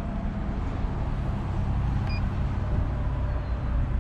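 A motor vehicle's engine running steadily, with one short electronic beep about two seconds in from the keypad of a parking pay machine as a licence plate number is keyed in.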